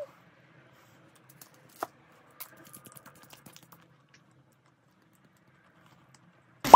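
A few faint, scattered clicks and ticks, about a dozen in a couple of seconds, with quiet between them. A loud sound cuts in at the very end.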